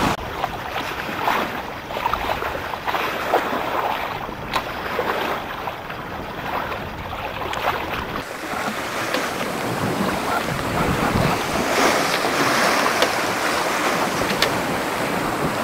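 Water splashing and rushing along the hull of a small sailboat under way, with wind and a few short knocks.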